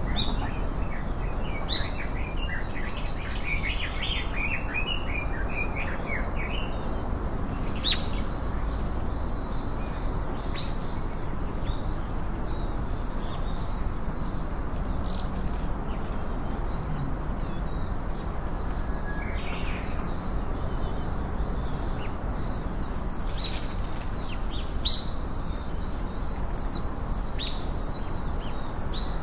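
Small birds chirping and twittering on and off, over a steady low background rumble, with a few sharp clicks.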